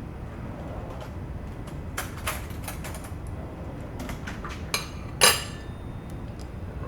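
Dishes and cutlery clinking and knocking over a steady low rumble. A handful of light clinks start about two seconds in, and a louder ringing clink comes a little after five seconds.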